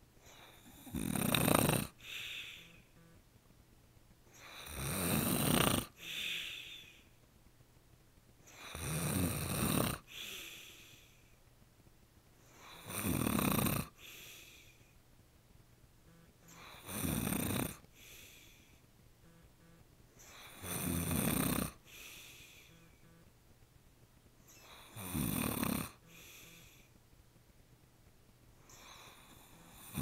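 A man snoring in his sleep with his mouth open: seven loud snores about every four seconds, each followed by a shorter, quieter breath, with a fainter snore near the end.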